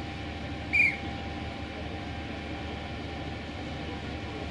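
Heavy machinery running with a steady low rumble and a faint steady hum, and one short high-pitched squeak a little under a second in.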